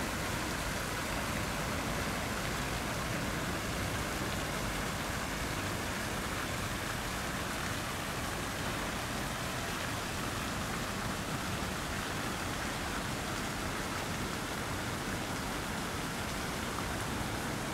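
Steady, even rush of falling water.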